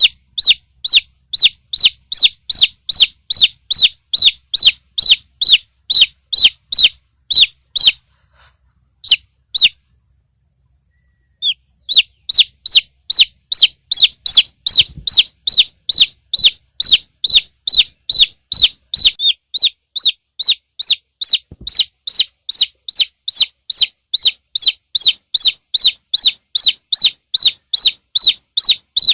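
Chick peeping: a steady run of short, loud, falling peeps, about two or three a second, broken by a pause of a few seconds about a third of the way in.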